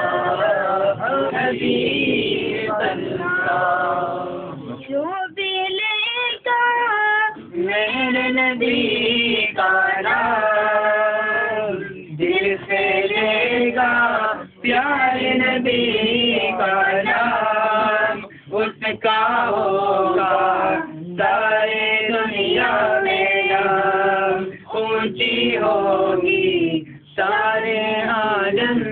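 A group of men singing salawat, devotional Arabic blessings on the Prophet Muhammad, together in sung phrases separated by short pauses.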